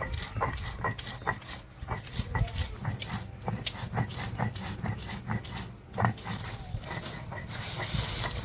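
Spices being ground on a flat stone slab with a hand-held stone (sil-batta): repeated rubbing and knocking strokes of stone on stone as ginger, garlic and black mustard seeds are worked into a paste.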